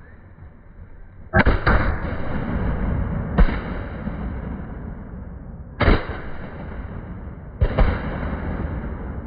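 A volley of shotgun shots from several duck hunters, about six blasts over some six seconds, some in quick pairs. Each shot is followed by a long echo that fades slowly between blasts.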